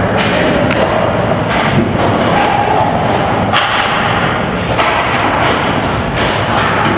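Ice hockey rink sounds: a steady wash of noise broken by several sharp thuds and knocks, like the puck and sticks striking the boards.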